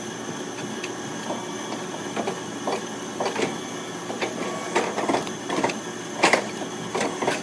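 CNC folding brake running with a steady hum as its folding beam bends sheet-metal trim, with irregular clicks and clanks from the metal and the machine throughout.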